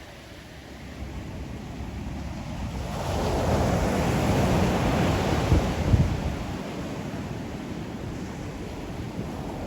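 Ocean waves breaking on the shore: the surf swells about three seconds in, peaks, then eases back, with low wind buffeting on the microphone.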